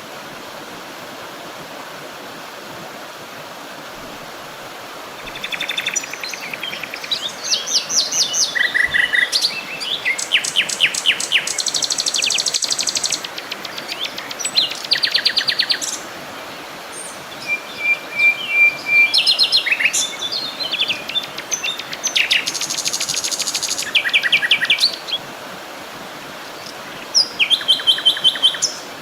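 Several songbirds singing, with rapid chirps and trills in repeated phrases starting about five seconds in, over a steady rush of flowing water.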